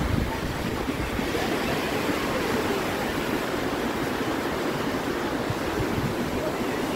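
Steady rushing hiss of small waves breaking and washing up a sandy beach.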